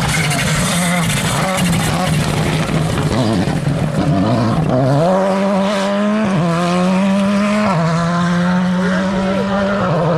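Rally car engine running hard: its note falls away about three seconds in, then climbs sharply near the middle and holds high, dipping briefly a few times.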